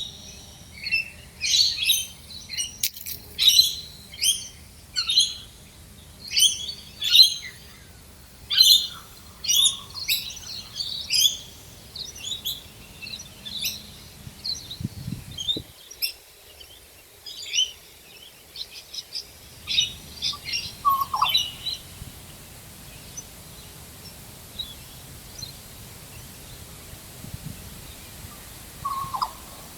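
Wild birds calling in Australia: short, high chirps repeated about once a second for the first twelve seconds or so, then sparser and more varied calls, with a lower call twice in the second half.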